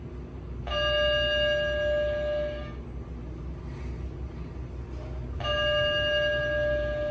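Schindler 3300 traction elevator's electronic car chime sounding twice, each a held multi-pitch tone about two seconds long, some five seconds apart, as the car reaches each floor going up. Under it runs the steady low hum of the car in motion.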